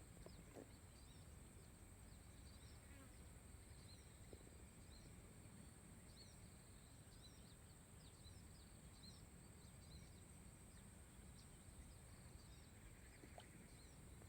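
Near silence: faint outdoor ambience with scattered faint high chirps and a steady high-pitched whine.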